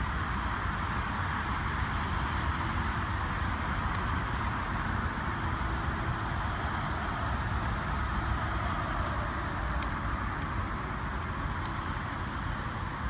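Steady rumble and hiss of road traffic, with faint light clicks from about four seconds in.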